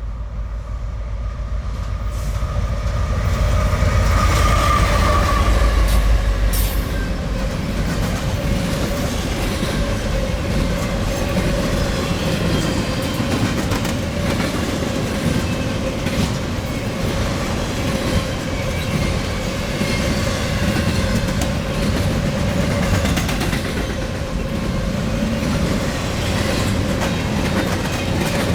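BNSF freight train passing close by at speed: a heavy rumble that is loudest about four to six seconds in, then a steady run of rail cars clacking over the track, with a steady ringing tone from the wheels throughout.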